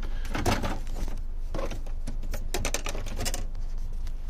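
Irregular plastic clicks, taps and rattles from handling a loosened centre-console side trim strip of a Tesla Model 3.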